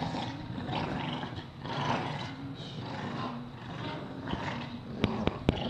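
Bulldogs growling in rough pulses as they tug at a rubber ball toy between them. About five seconds in come three sharp knocks, louder than the growling.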